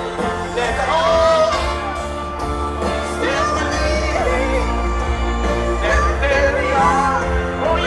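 Live band playing a slow gospel-style rock song, with a lead singer holding and bending long notes over sustained chords and a steady bass line.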